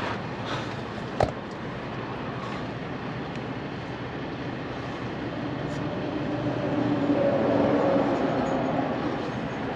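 Steady rumbling vehicle noise, with a low hum that swells about halfway through and fades near the end, and a single sharp click about a second in.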